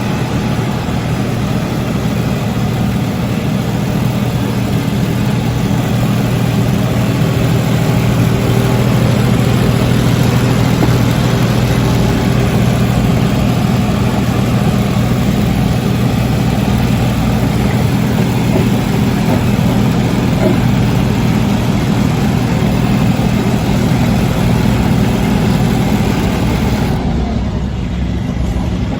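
Small farm tractor's engine running steadily, probably driving the compost spreader. The hiss above the engine hum drops away near the end.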